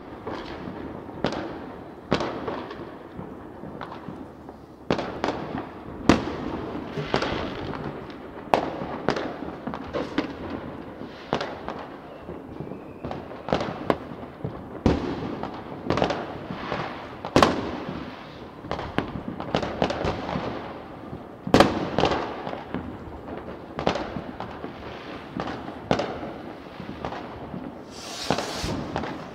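Fireworks and firecrackers going off in an irregular, continuous run of bangs and crackling. A few sharper, louder bangs stand out above the rest.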